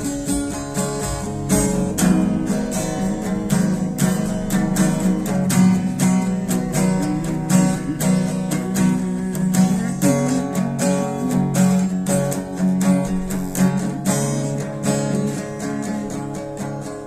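Instrumental break in a gospel song: acoustic guitar strumming in a steady rhythm over sustained accompanying notes, with no singing.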